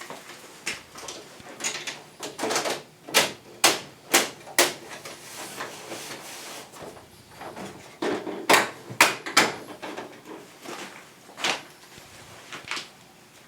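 Irregular sharp clicks and knocks of air conditioner parts being handled and fitted, in quick clusters about three seconds in and again about eight seconds in, with single knocks later.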